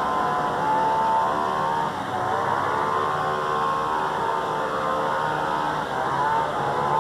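An engine running steadily, its pitch slowly rising and falling.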